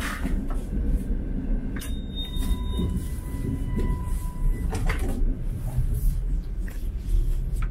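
Push-button automatic sliding doors between passenger railway cars opening and closing, with several sharp clicks and knocks over a steady low rumble.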